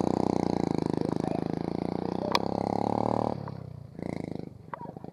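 Small motorcycle engine running close by with an even pulsing beat, then dropping away sharply about three seconds in; a single sharp click a little past two seconds.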